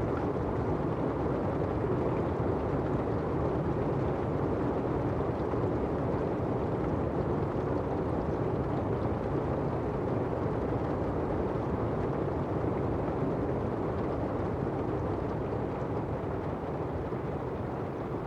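Steady rain falling, a dense even hiss with no separate drops heard, easing off slightly near the end.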